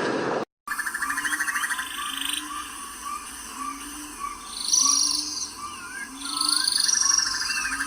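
Frog chorus: evenly repeated croaks about once a second under quicker repeated notes and buzzing trills, with birds chirping and whistling above. It opens with a rushing noise that cuts off abruptly about half a second in.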